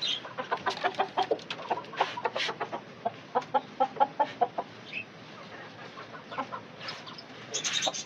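Chickens clucking in quick runs of short calls, busiest about halfway through, as a hen is grabbed in a wire-mesh pen, with scuffling and knocking noises among the clucks.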